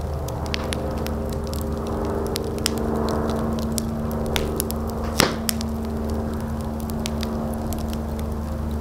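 Fire crackling with scattered sharp pops and one louder pop about five seconds in, over a steady low hum.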